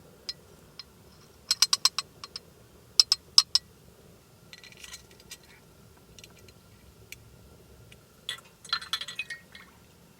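Small hard objects clinking and tapping in quick clusters: a handful of clinks about a second and a half in, three more about three seconds in, and a denser run of clinks near the end.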